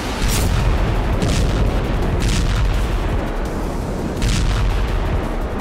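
Explosions booming over a continuous deep rumble, with sharp cracks roughly once a second, like artillery or missile impacts.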